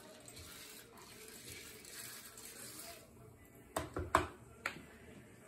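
Dry popcorn kernels poured from a measuring cup into the bowl of an R2-D2 popcorn popper, a faint steady rattle, followed a little after three seconds in by four sharp knocks.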